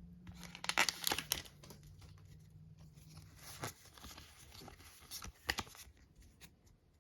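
Pokémon TCG booster pack's foil wrapper being torn and crinkled by hand, in clusters of crackling: about a second in, again near four seconds, and around five and a half seconds.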